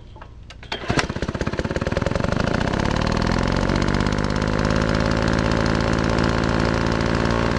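An engine catching about a second in, then speeding up over the next two seconds to a steady fast running beat.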